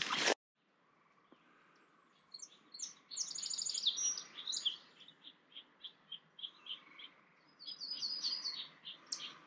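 Small songbirds singing: high chirps and quick trills, with a run of short, evenly spaced notes in the middle, over a faint steady background hiss.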